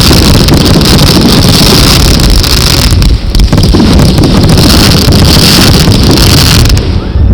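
Dense fireworks barrage heard as a continuous distorted roar and crackle, loud enough to overload the camera microphone. It dips briefly about three seconds in and again near the end.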